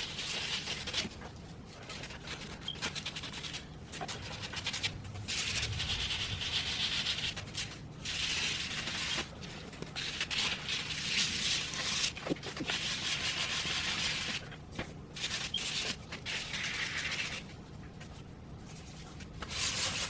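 Hand sanding of body filler on an aluminium wheel's curb-rash repair with folded 180-grit sandpaper. It is a dry rasping hiss in runs of strokes, broken by short pauses, during the final shaping of the filler.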